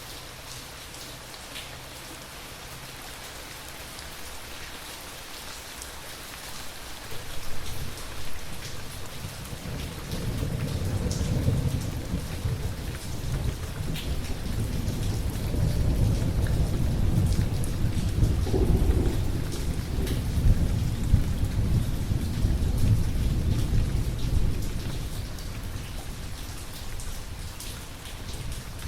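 Steady rain with a long, deep rolling thunder rumble that begins about seven seconds in, swells through the middle and dies away near the end.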